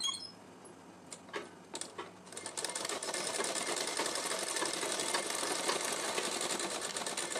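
Sewing machine putting a long temporary basting stitch into cotton fabric. A couple of single clicks come first, then from about two and a half seconds in there is a steady, fast clatter of stitching.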